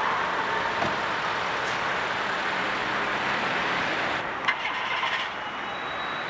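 Street traffic noise with cars driving past, and a short cluster of sharp clicks about four and a half seconds in.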